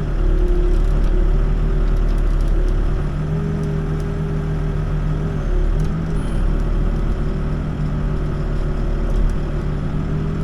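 Backhoe's diesel engine running at a steady speed, heard from the operator's seat, with a few faint clicks.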